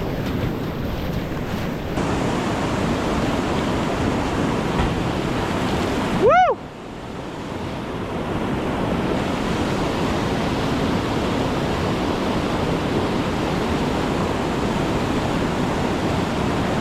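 Steady rush of river water, with wind noise on the microphone. About six seconds in, a brief tone swoops up and back down, and the sound drops away for a moment.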